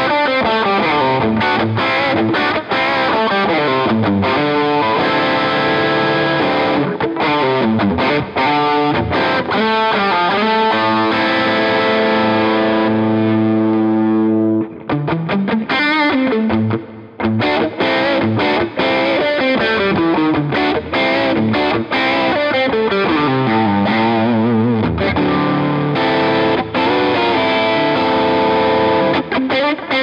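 Distorted electric guitar from a PRS Singlecut Artist Package with humbucker pickups, playing a lead: quick picked runs, a long held note about twelve seconds in, a short break near fifteen seconds, then more busy phrases.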